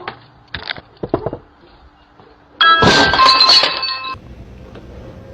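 A sudden loud crash about two and a half seconds in, like glass breaking, with clinking and ringing lasting about a second and a half. It follows a few short, fainter knocks.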